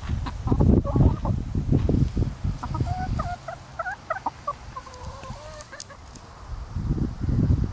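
Hens clucking in a run of short, chirpy notes from about two and a half seconds in until past five seconds. A low rustling rumble, the loudest sound, comes before and after them.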